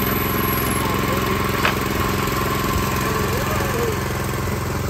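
Predator 212 single-cylinder four-stroke engine running steadily at an even speed, with one sharp click about a second and a half in.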